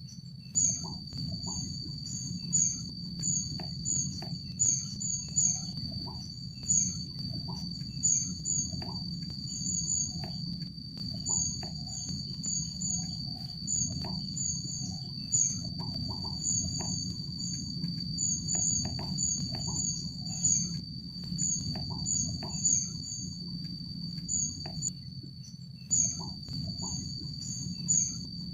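Rufous-backed kingfisher giving short, high, thin call notes, repeated in quick runs throughout, over a continuous high-pitched insect drone and a low steady rumble.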